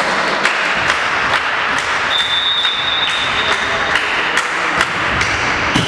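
Volleyball game sounds in a large gym: scattered sharp knocks and slaps of ball and hands echoing in the hall over a noisy background, with a referee's whistle held as one steady high note for about two seconds, starting about two seconds in.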